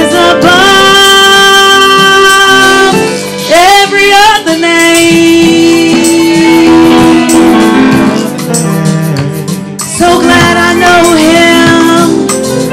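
Live worship music: long held melodic notes that slide between pitches, over a guitar-led accompaniment.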